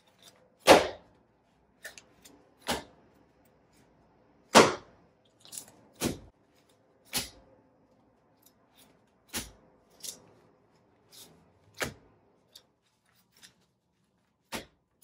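About fifteen short, sharp swishing hits at uneven intervals, the loudest about a second in and again near four and a half seconds in, over a faint steady hum.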